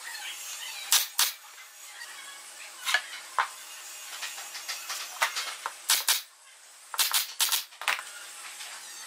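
Pneumatic brad nailer firing nails into pine boards: about ten sharp shots, each with a hiss of air, mostly in pairs or quick runs, the busiest run near the end.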